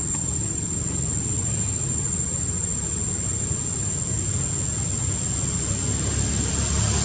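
Steady low rumble of an engine running, with a thin, steady high-pitched whine above it.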